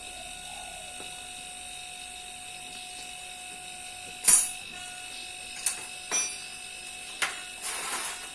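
Hand tools knocking and clinking against metal: about five sharp knocks over the second half, the first the loudest, then a short rasping scrape near the end, over a steady background hum.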